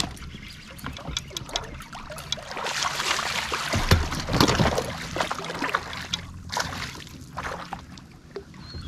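A hooked black bass splashing at the water's surface while being fought. The splashing is loudest from about three to five seconds in, with a sharp click at the very start.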